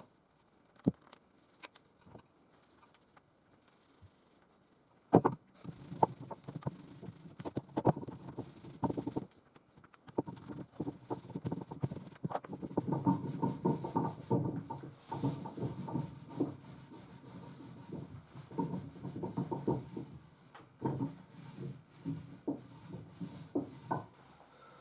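Hand rubbing and scraping on a workpiece, with scattered light knocks and clicks. A few isolated clicks come first, then from about five seconds in the rubbing runs on almost without a break.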